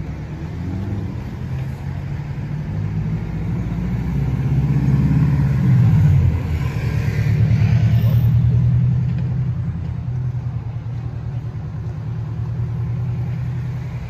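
Motor vehicle engine on the adjacent road, a low steady hum that swells to its loudest about halfway through, its pitch dropping as it goes by, then easing a little.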